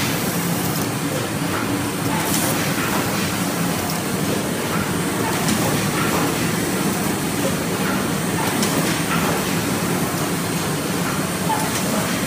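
Automatic rigid box making machine running: a steady mechanical hum and clatter from its rollers and feed mechanism, with an occasional sharp click every few seconds.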